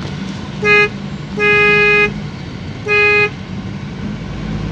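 Vehicle horn sounding three times, a short toot, a longer blast and another short one, all on one steady pitch. Beneath it runs the steady low hum of a moving vehicle.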